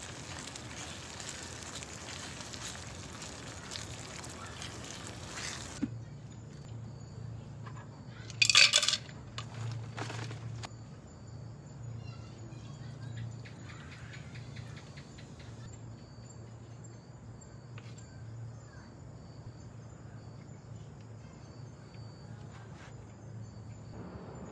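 Food sizzling in a pot on a portable gas stove while it is stirred with a wooden spatula; the sizzle cuts off suddenly about six seconds in. After that come a short loud noise and a few clinks of utensils on cookware, over a steady low hum.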